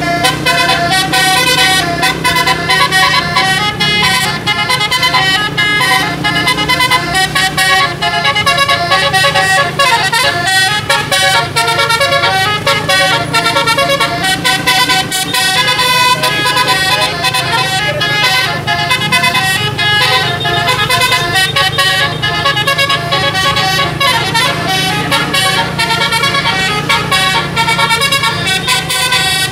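A bus's multi-tone musical air horn (telolet) plays tune after tune without a break, its notes changing several times a second, over the steady low hum of the bus's engine.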